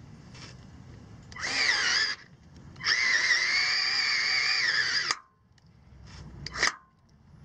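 Cordless drill running at the aluminum catalytic-converter shield in two bursts, a short one and then one of about two seconds, with a high whine, followed near the end by a brief rising blip of the drill motor.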